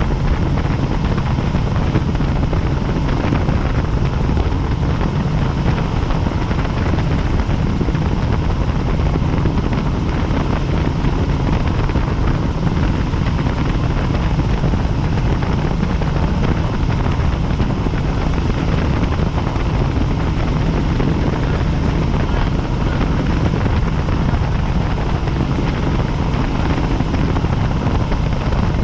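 Helicopter in flight, recorded aboard: a steady, dense rotor and engine rumble, heaviest in the low end.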